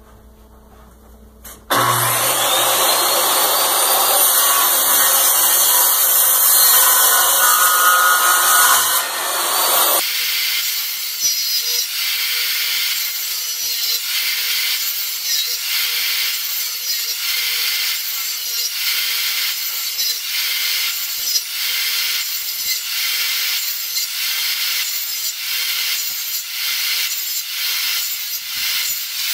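Handheld circular saw starting up about two seconds in and cutting into a wooden board. About ten seconds in the sound changes to a rasping that repeats steadily, a little more than once a second, as the saw is worked back and forth across the wood.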